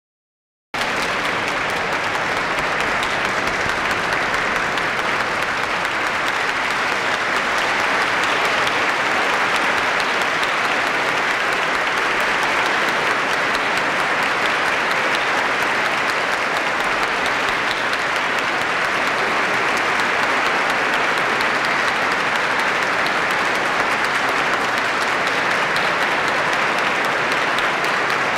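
Large audience applauding steadily, cutting in abruptly just under a second in.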